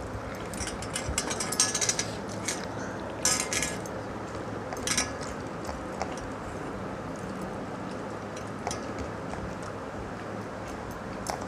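Hand-eating sounds of water-soaked rice (pakhala): wet clicks and smacks of mouths and fingers, in short clusters over the first five seconds and then scattered ticks, over a steady low hum.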